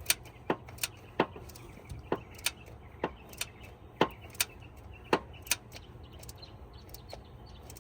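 Ratchet wrench clicking on valve cover bolts: sharp metallic clicks, often in pairs about half a second apart, thinning out near the end.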